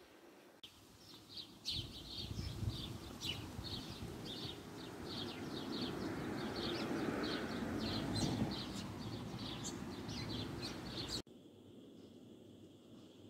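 Small birds chirping repeatedly, several chirps a second, over a long low rumble that swells and then eases off. Both cut off abruptly near the end, leaving only a faint hiss.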